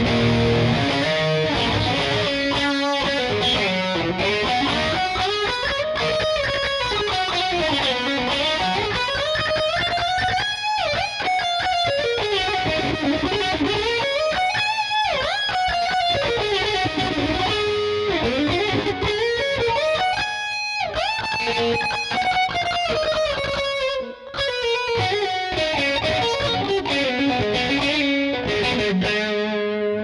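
McLorence JP100 electric guitar played with distortion in humbucker mode: fast lead runs that climb and fall in pitch over and over.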